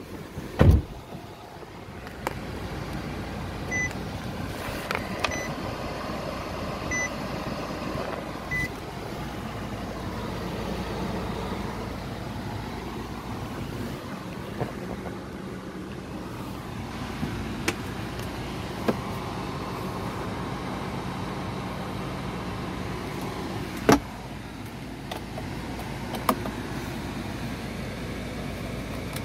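Cabin sound of a 2018 Nissan Armada SL's 5.6-litre V8 running at idle with the ventilation fan, a steady hum that begins about two seconds in after a thump. Early on, a chime beeps four times about a second and a half apart, and a few sharp clicks come later.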